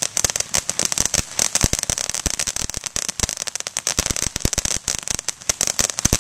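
Ground fountain firework (the "Main Squeeze") spraying sparks: a steady high hiss with dense, rapid crackling pops.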